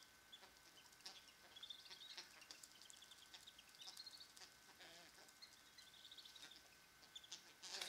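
Faint, rapid high-pitched peeping of black-bellied whistling duck ducklings, in quick runs of short peeps that keep coming, with a few lower calls about five seconds in.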